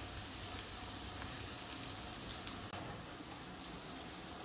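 Sliced onions and curry leaves sizzling steadily in hot oil in a frying pan.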